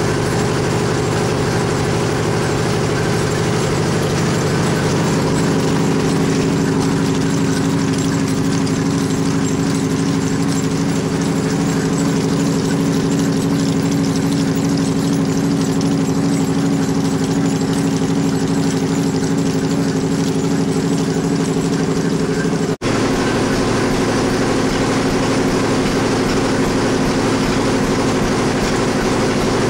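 An 1880s E. Van Winkle cotton gin running steadily while ginning seed cotton: a loud, even machine drone. It drops out for an instant about three-quarters of the way through, then carries on.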